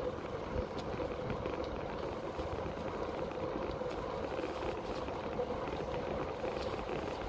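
Outdoor wind buffeting a handheld camera's microphone: a steady, uneven low rumble with a few faint ticks.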